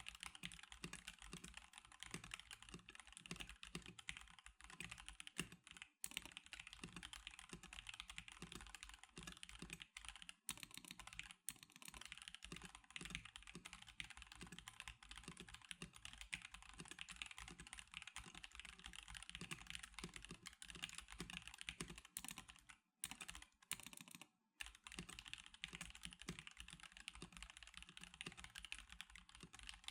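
Continuous fast typing on a stock NovelKeys NK87 Darkshake Edition mechanical keyboard, a dense run of keystrokes with a few short breaks, twice in quick succession a little past two-thirds of the way through.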